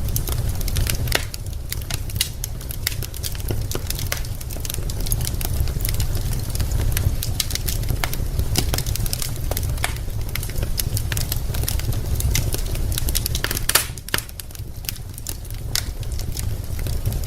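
Wood fire in a fireplace crackling: a constant, irregular scatter of small snaps and pops over a low, steady rumble, with one louder pop about fourteen seconds in.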